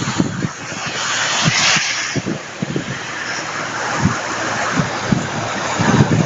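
Muddy floodwater rushing past in a steady torrent, with frequent low thumps of wind on the microphone.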